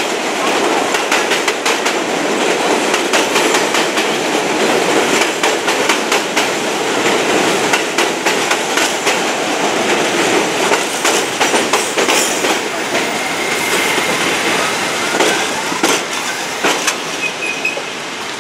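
R68 subway train running along an elevated steel station, with dense clicking of wheels over rail joints over a steady rumble. A faint high wheel squeal comes in a few times in the second half, and the noise eases slightly near the end as the last car comes by.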